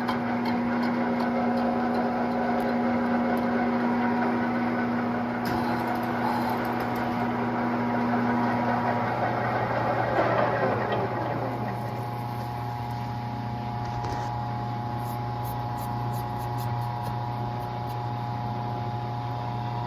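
Bulgarian C10T metal lathe running steadily with a constant hum and a few steady whining tones while boring the bearing seat of an elevator sheave. About ten seconds in, a whine falls in pitch over a couple of seconds, and the lathe then runs on at a new, steady pitch.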